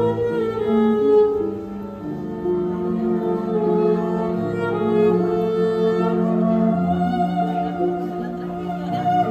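A cello bowed in a slow tune of long held notes, each lasting a second or two.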